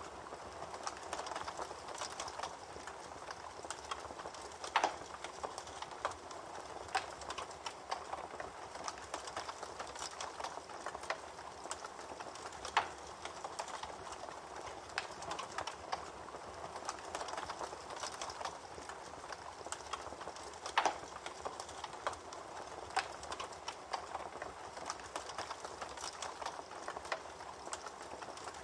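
Campfire crackling, with many sharp snaps and a few louder pops, over the steady rushing gurgle of a babbling creek.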